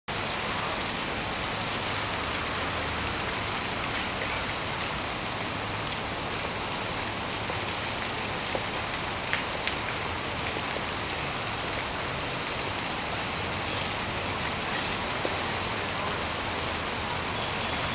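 Steady outdoor city background noise: an even hiss with a low hum that comes and goes, and a few faint ticks.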